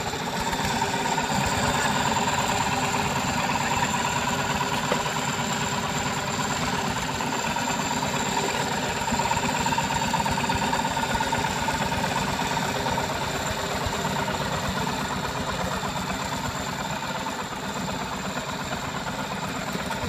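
Single-cylinder diesel engine of a two-wheel walking tractor running steadily at a constant speed, a rapid, even chugging.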